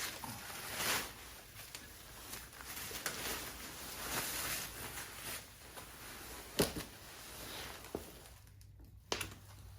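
Handling of foam packing and a heavy cast aluminum part: scattered rustling and light clicks, with one sharper knock about two-thirds of the way through.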